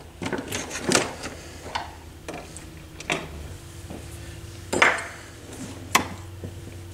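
Knocks and clicks of a Technics SL-23 turntable's metal deck being handled and its controls worked, about six separate hits with a faint steady hum coming in partway through.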